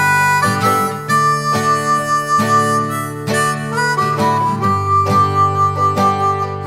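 Background instrumental music: long held melody notes, some bending in pitch, over plucked string chords.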